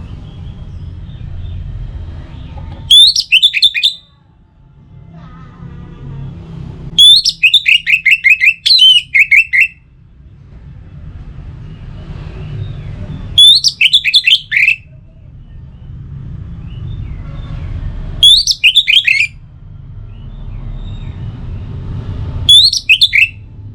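Orange-headed thrush singing: loud phrases of quick, steeply falling whistled notes, one every four to five seconds, the one about seven seconds in longer than the others, over a steady low rumble.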